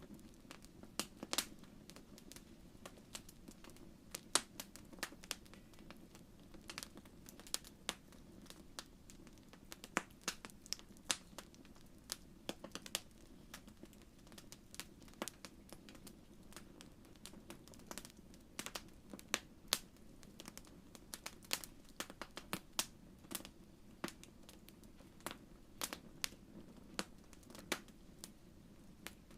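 Wood fire crackling in a fireplace: irregular sharp pops and snaps over a soft steady low rush of flame.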